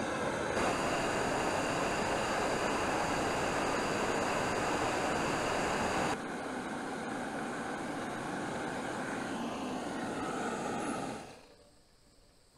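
Steady rushing noise that drops a step in level about six seconds in, then fades away near the end.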